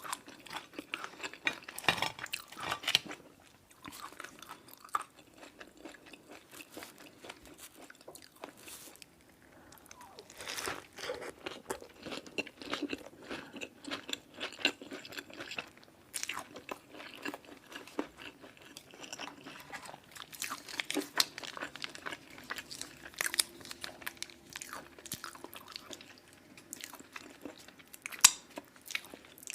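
Close-miked eating of crunchy fried fast food: irregular crunching bites and chewing, with quieter pauses a few seconds in and midway.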